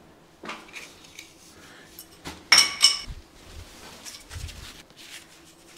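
A wooden carpenter's pencil dropped onto a bare concrete floor, landing with two sharp, ringing clacks about two and a half seconds in, among faint scuffs and dull bumps as it is picked up.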